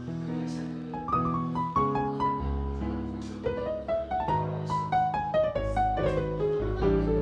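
Background piano music: a melody of struck notes over sustained low chords.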